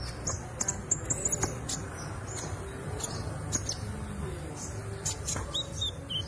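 Konin songbird giving many rapid, high-pitched chirps and short, sharp call notes, some falling in pitch, scattered irregularly, over a low steady background rumble.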